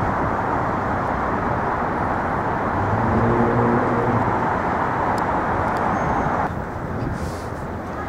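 Steady city street traffic noise, with a pitched vehicle engine hum about three seconds in; the noise drops suddenly in level near the end.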